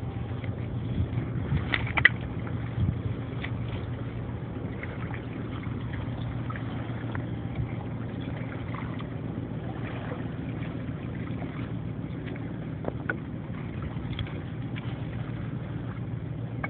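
Steady low rumble with a hiss of river water lapping at the stones, and a few faint clicks and cracks as a young dog gnaws a stick on the pebbles.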